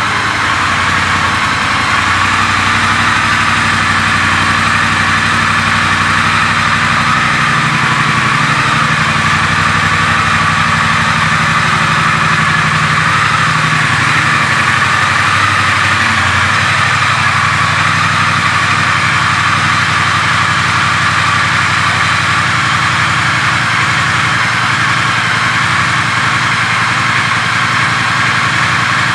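The 1200 cc parallel-twin engine of a 2016 Triumph Thruxton R idles steadily.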